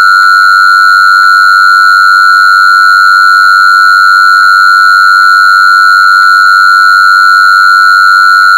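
A loud, steady, high electronic tone held at one unchanging pitch, with fainter overtones above it.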